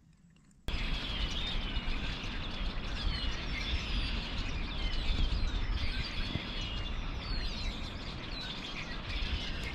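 A flock of about 300 red-winged blackbirds in one tree calling all at once: a dense, unbroken chatter of overlapping chirps and short whistles. It starts abruptly under a second in, over a low rumble.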